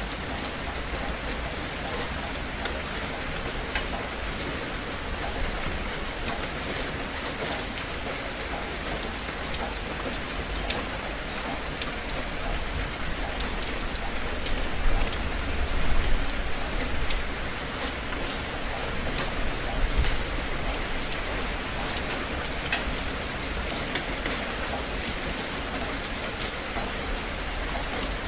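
Steady rain falling, an even hiss with many separate close drop hits ticking through it. It swells louder for a couple of seconds about halfway through.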